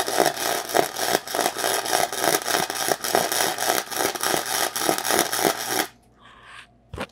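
Arc welding on scrap metal: the arc crackles and spits steadily while a bead is laid, then cuts off suddenly about six seconds in as the weld stops. A single short knock follows near the end.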